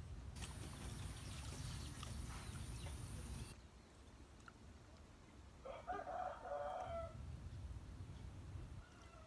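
A rooster crows once, about six seconds in, over a low rumble of wind on the microphone; for the first three and a half seconds there is a crinkly rustling hiss that stops suddenly.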